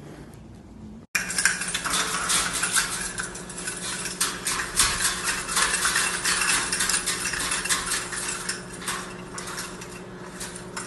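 Starting about a second in, a white-bellied caique knocks and shakes a hanging toy of red plastic cups: a dense, rapid clatter of plastic clicks and rattles. A steady low hum runs underneath.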